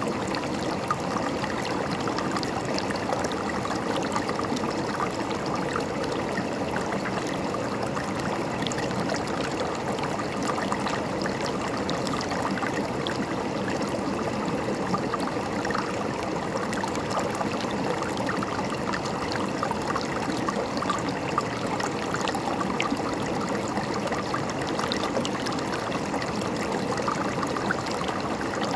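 River water flowing and gurgling steadily over rocks, a continuous rushing babble with small splashes throughout.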